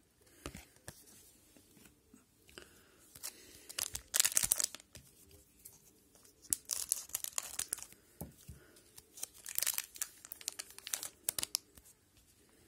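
A trading-card pack wrapper being torn open and crinkled, in several irregular rasping bursts with soft rustles and clicks between them; the loudest tearing comes about four seconds in, with more around seven and ten seconds.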